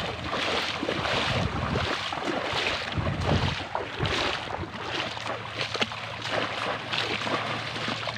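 Shallow river water splashing and sloshing over and over as fishermen work the water with bamboo polo traps, with wind buffeting the microphone for the first few seconds.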